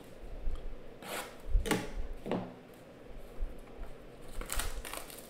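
Hands scraping and rustling the plastic shrink-wrap on a cardboard trading-card box as it is being opened, in a few short strokes about a second in, near the middle and near the end.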